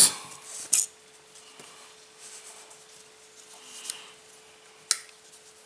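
A few sharp, small clicks and light rustling from hands handling fishing tackle: fluorocarbon line, crimp sleeves and crimping pliers. The loudest clicks come about a second in and near the end. A faint steady hum runs underneath.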